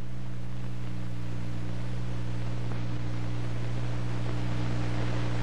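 Steady hiss with a low, even electrical hum: background noise of an old film soundtrack, with no other sound over it.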